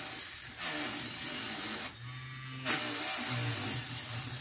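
Dremel Stylo rotary tool running with a small sanding disc against carved wood: a steady motor hum under the hiss of the abrasive on the wood. The sanding hiss drops away briefly about halfway through, then starts again.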